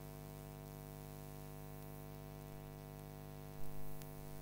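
Steady electrical mains hum, a low buzz with many overtones. A brief soft knock about three and a half seconds in.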